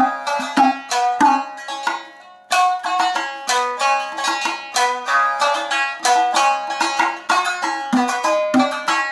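Shamisen playing a nagauta melody of sharp plucked notes; the notes die away briefly about two seconds in, then resume in a quicker run.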